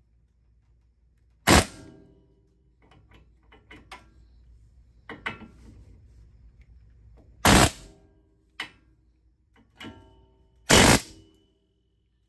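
A Harbor Freight pneumatic air hammer fires three short bursts, each a fraction of a second, against the seized, heated remains of the old wheel bearing on a van's steel front spindle. Each burst leaves the metal ringing, and lighter metallic clicks fall between them. The bearing is stuck fast and is being hammered loose.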